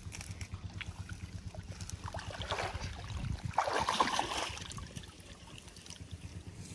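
Canal water splashing and pouring, building to a loud surge about three to four seconds in, over a low, uneven rumble.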